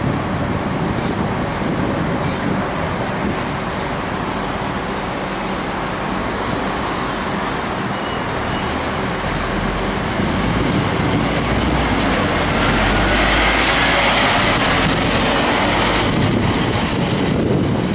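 Scania N310UA articulated diesel bus running at a stop and then moving off, its engine note rising and growing louder about two-thirds of the way through, over street traffic noise. A few short clicks come in the first few seconds.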